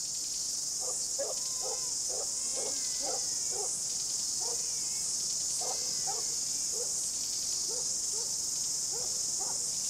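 A steady, high-pitched chorus of insects, crickets or cicadas, with a run of short pitched cries over it, several a second at first and sparser later.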